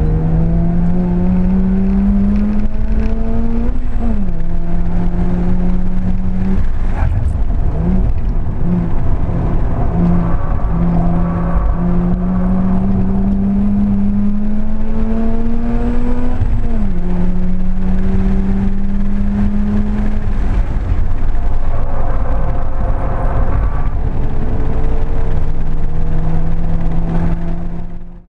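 Mazda RX-8's two-rotor rotary engine heard from inside the cabin while lapping. The revs climb steadily and drop sharply twice, as at an upshift, with choppy on-off throttle between the two climbs. The sound fades out near the end.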